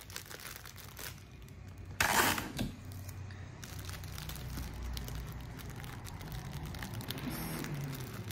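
Clear plastic bag crinkling and rustling as it is folded and pressed by hand, with one louder crinkle about two seconds in.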